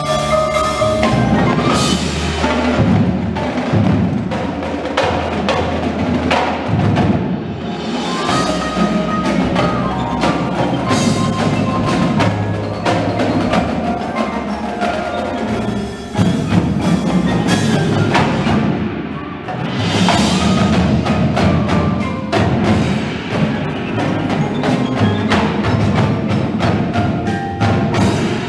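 Indoor percussion ensemble playing: a marching battery of snare and bass drums striking dense rhythms over a front ensemble of marimbas and vibraphones.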